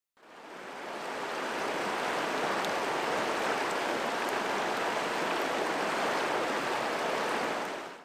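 A shallow, rocky river rushing steadily. The sound fades in over the first second or so and cuts off suddenly at the end.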